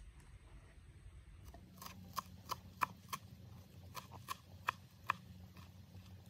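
A kitchen knife chopping fresh parsley on a wooden cutting board: about ten sharp knocks of the blade against the board, roughly three a second in two short runs, starting about two seconds in and stopping about five seconds in.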